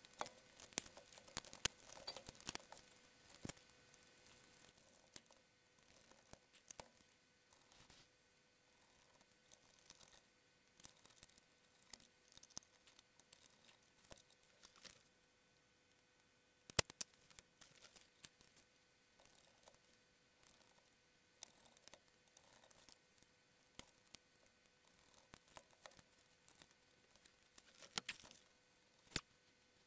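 Faint handling noise of a camcorder's plastic casing being fitted back together: scattered clicks and taps of plastic parts, with a flurry at the start, a sharper click a little past halfway and a few more near the end.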